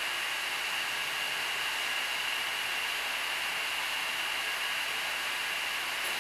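Butt fusion welding machine running steadily while it pressurises the pipe against the heater: a constant mechanical hiss with a steady high whine.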